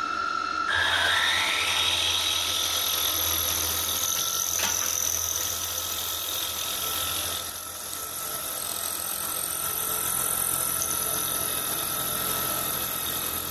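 Bench milling machine's spindle motor whining up to speed about a second in, then running steadily with a low hum as a drill bit enlarges a hole in a cast iron block.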